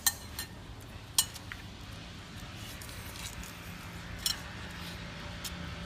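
Metal spoons clinking against ceramic plates while eating: three sharp clinks, right at the start, about a second in and about four seconds in, with lighter taps between.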